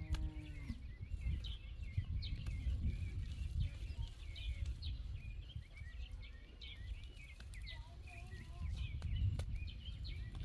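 Many small birds chirping in quick, overlapping calls over a steady low rumble. A short pitched animal or human call sounds right at the start.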